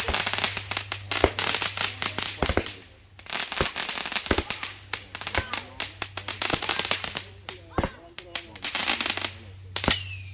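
Fireworks crackling: dense runs of rapid small pops, two long runs in the first five seconds or so, then scattered pops with voices between them.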